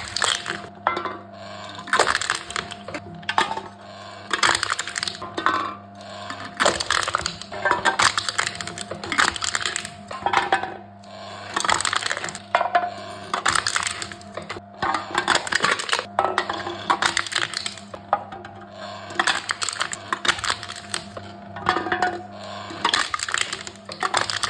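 Aluminum cans being crushed one after another by a machine: repeated bursts of crackling, crinkling metal, each up to a second or two long, over a steady low hum.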